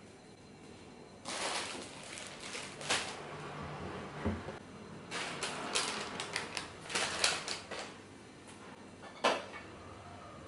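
Plastic snack and tissue packets rustling and crinkling as they are handled, with a few knocks of items set down on a wooden table, the sharpest about three seconds in and near the end.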